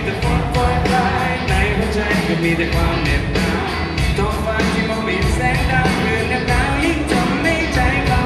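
Live band playing a pop-rock song on electric guitars, bass and drums with a steady beat, with singing over it.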